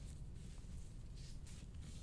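Soft-tissue scraping tool stroked over skin: short, scratchy strokes a few per second, sparse at first and picking up again about a second in.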